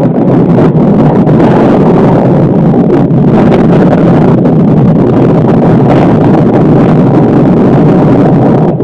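Strong wind blasting the microphone: loud, steady wind noise that covers everything else.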